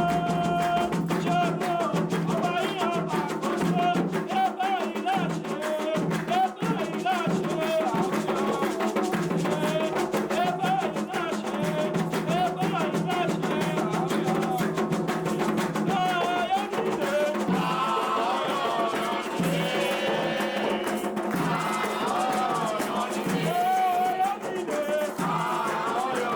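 Music with singing over a steady drum rhythm.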